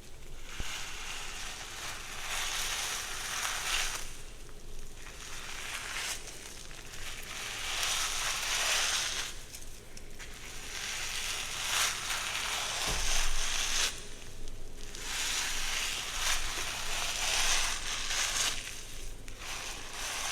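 Hair rustling under slow strokes, close-miked for ASMR: long crackly passes of two to four seconds each, about five of them, with short pauses between.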